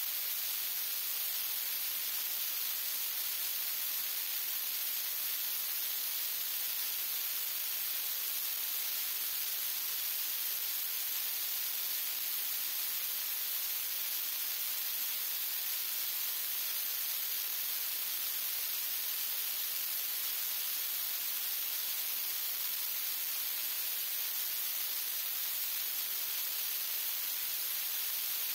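Steady, even hiss like static, unchanging throughout, with no clicks or knocks from the jack standing out above it.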